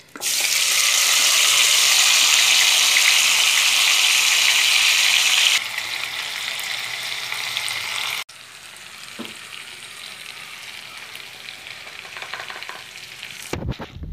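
Marinated chicken pieces hitting hot oil in a pan and frying with a loud sizzle, which drops to a quieter steady sizzle after a few seconds. A few knocks near the end.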